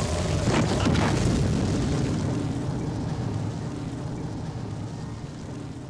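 Cinematic crash of the huge church cross coming down: a deep rumbling boom with debris clattering in the first second, slowly dying away.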